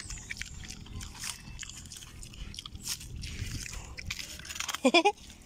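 Pig biting and chewing a banana from a hand, with crunching and wet smacking clicks. About five seconds in, a short, loud pitched cry.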